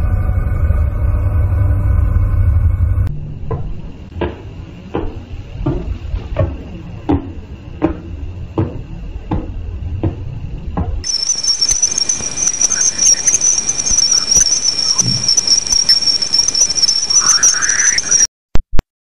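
A run of space-sound sonifications. A low droning rumble with steady tones lasts about three seconds. Then a pulsar's regular clicks come about one and a half a second for some eight seconds. From about eleven seconds in a steady high-pitched whine with crackle runs until it cuts off near the end.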